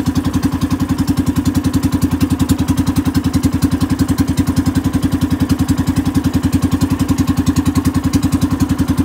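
Engine of a small motorized outrigger boat running at a steady cruising speed, a rapid, even beat with no change in pace.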